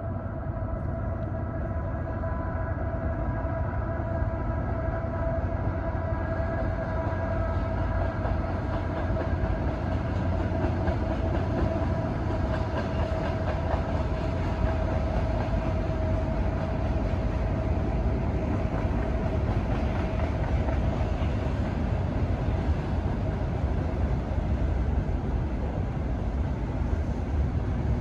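Freight train passing: a steady rumble and rattle of the cars rolling on the rails, with a steady whining tone that fades out about halfway through.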